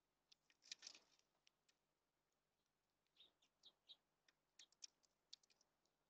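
Faint, scattered short chirps and ticks from small songbirds at a seed feeder, bunched about a second in and again from about three to five seconds.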